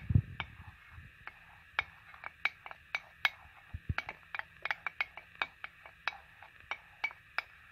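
Wooden spoon stirring on a ceramic plate, knocking and scraping against it in quick, irregular clicks.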